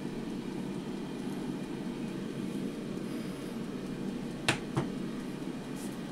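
A ceramic bowl set down on a table: two quick knocks close together about four and a half seconds in, over a steady low hum.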